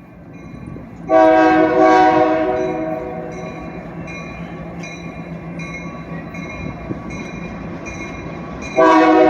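Union Pacific freight locomotive's air horn sounding a long chord blast about a second in, fading over a couple of seconds, then another blast starting near the end, over the steady rumble of the approaching train. A bell dings about twice a second between the blasts.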